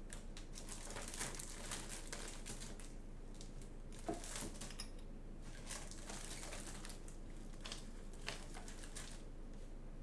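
Faint irregular clicks and rustling in small clusters, with one sharper tap about four seconds in.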